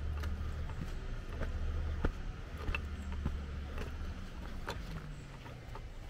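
Footsteps on a dirt woodland path strewn with twigs and leaves, a short scuff or crunch roughly every half second to second, over a low steady rumble that stops about four seconds in.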